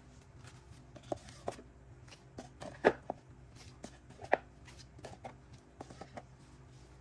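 CD single card sleeves being handled and set into a white cardboard box: irregular light taps and scuffs of card on card, with two sharper knocks about three and four seconds in.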